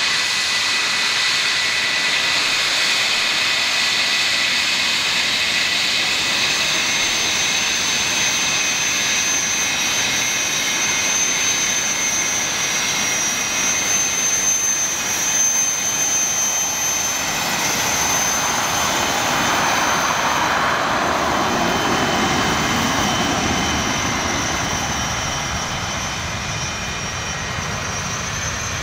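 English Electric Lightning's twin Rolls-Royce Avon turbojets running at taxi power as the jet taxis past: a steady, loud whine made of several high tones over a jet rush. About two-thirds of the way in a deeper rush swells as the jet turns its tailpipes away, then the sound eases off slightly.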